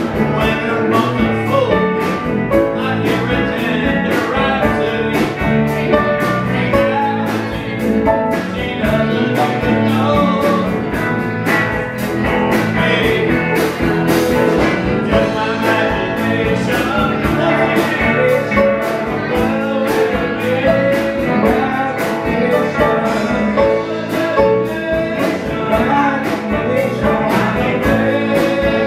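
Live band playing with electric guitars, keyboards and drums, a singer's voice carried over the top.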